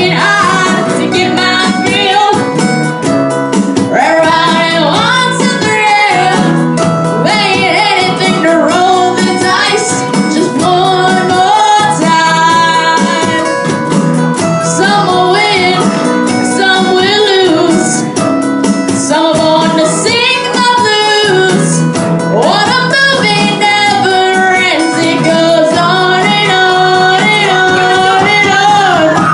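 A boy singing lead into a microphone, in a high unbroken voice, over strummed acoustic guitars and a drum kit: a young band playing a rock song live.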